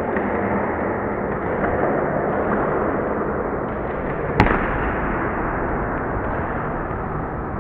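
A volleyball rally in a sports hall: steady noise of spectators and players, broken about four and a half seconds in by one sharp smack of the ball being hit at the net during a spike and block.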